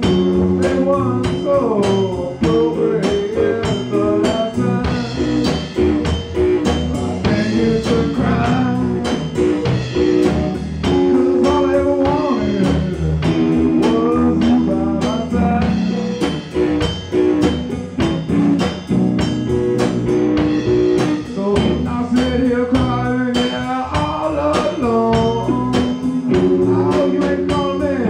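Live band playing: electric guitars with bending lead lines over a steady drum-kit beat.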